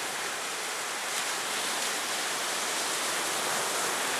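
Ocean surf washing onto a beach: a steady, even hiss of breaking waves.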